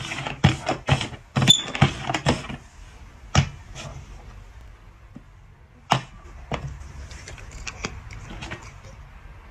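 Hard plastic cups clacking on a board as they are shuffled: a quick run of knocks over the first two seconds or so, then single knocks at about three and a half and six seconds, and a few faint taps after.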